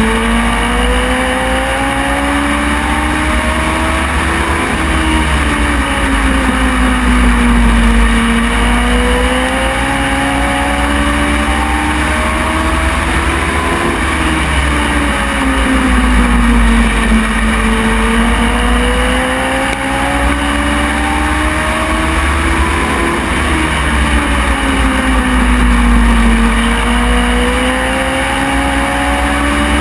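Onboard sound of a short-track race car's engine at racing speed, the revs climbing and then dropping in a smooth repeating cycle about every nine seconds as it goes down the straights and lifts for the turns. A heavy low rumble runs underneath.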